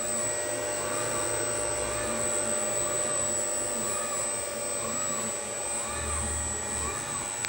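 Siemens Sinamics servo drive module running under test: a steady whir like a cooling fan, with a constant high-pitched whine and a faint warble repeating about once a second.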